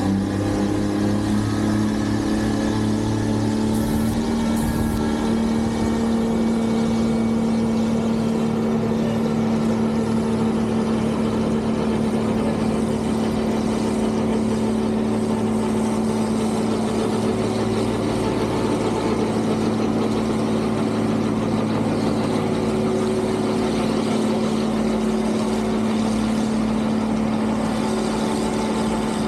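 Engines of snow-removal machinery running steadily, a continuous drone with a constant hum.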